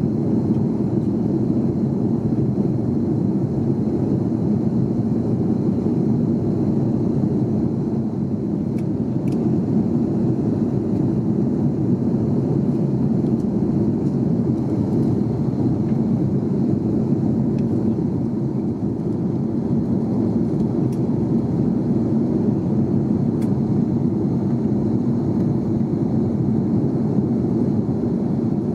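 Steady low roar of an Airbus A330-200 in flight, heard from inside the cabin: engine and airflow noise running without change, with a few faint ticks.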